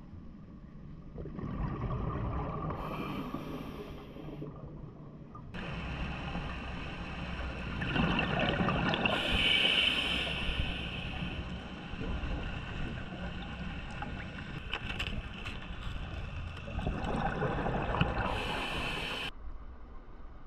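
Muffled underwater noise heard through a diving camera's housing, with three louder bubbling rushes about two, nine and eighteen seconds in, like a scuba diver exhaling through a regulator.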